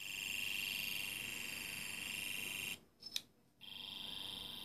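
Custom brass sonic screwdriver prop playing its throwback electronic sound effect: a steady pulsing tone of several pitches for almost three seconds, then two clicks, then the tone again near the end.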